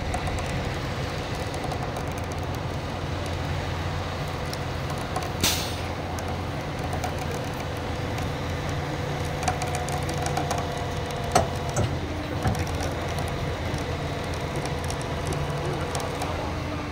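Wrecker's engine running steadily under load as it winches a submerged pickup truck up the bank by cable. A short hiss comes about five seconds in, and a few sharp clicks follow later.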